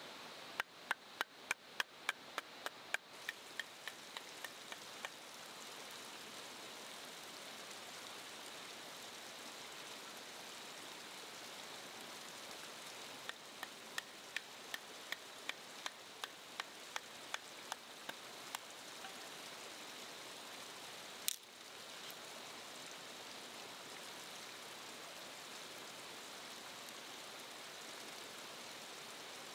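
Steady hiss of water. Over it come two runs of sharp clicks, about three a second: the first fades over four seconds and the second comes about halfway through. One louder single click follows later.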